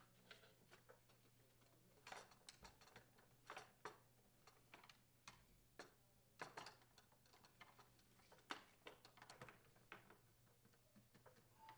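Near silence broken by faint, scattered clicks and ticks: a hand screwdriver driving screws into a leaf blower's plastic fan cover, with light handling of the plastic parts.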